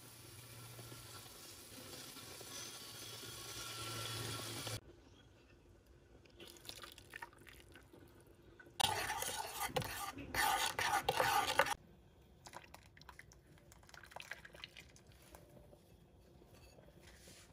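Chili oil (sa tế) sizzling and bubbling in a pan, growing louder, then cut off suddenly. About halfway through, a loud rush of liquid lasts about three seconds, followed by a pot of broth bubbling faintly at the boil.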